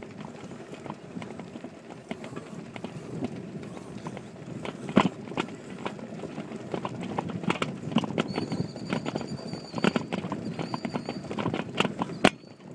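Mountain bike rolling over rough grass, its handlebar-mounted phone and mount rattling and knocking irregularly over a steady tyre and wind rumble. A faint high steady whine joins for about three seconds in the second half.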